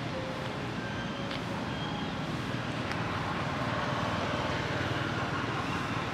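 Steady rushing outdoor noise with a low rumble, even in level throughout, with a few faint short chirps over it.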